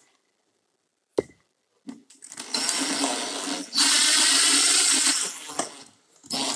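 Cordless drill driving a screw through a metal blind-mounting bracket into the wall. The motor runs for about three seconds, steps up louder partway through, then winds down. A single sharp click comes about a second before it starts.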